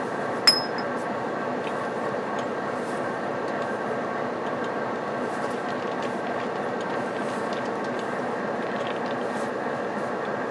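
Train running steadily along the rails, an even rumble with a faint steady hum. About half a second in comes a single sharp metallic clink that rings briefly.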